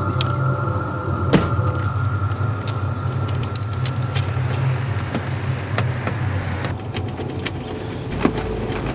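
A car engine idling steadily, with scattered sharp clicks and taps such as keys and a door handle. The idle fades near the end.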